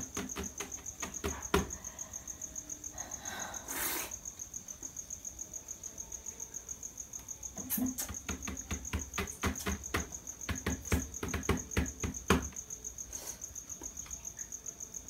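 A cricket chirping steadily in a high, pulsing trill, with a run of quick, faint ticks.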